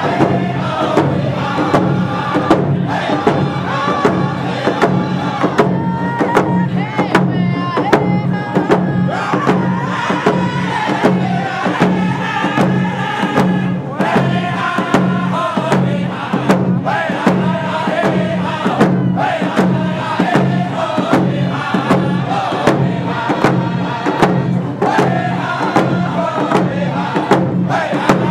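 Round dance singers chanting a Nakoda song together in unison to frame hand drums, all struck at once in a steady beat.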